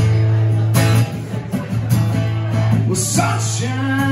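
Acoustic guitars and an electric guitar play a slow song together, strummed and picked. A man's singing voice comes in about three seconds in.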